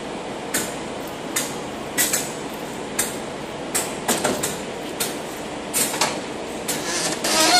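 Boots stepping along a locomotive's steel side walkway, a sharp knock roughly every second over steady background noise, with a louder metallic clatter near the end.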